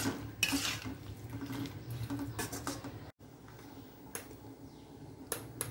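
A slotted steel ladle stirs black chickpea gravy in a steel kadai, with wet sloshing and a few light clinks against the pan. After a sudden cut it is quieter, with a few isolated pops as the thin gravy heats toward the boil.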